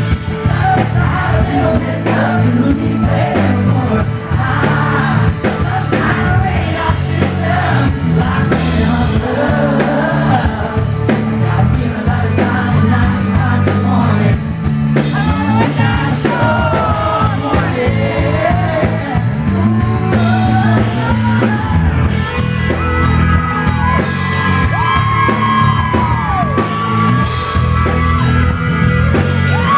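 Live country-pop band playing, with a male lead vocalist singing over acoustic guitar and the full band; near the end he holds several long notes.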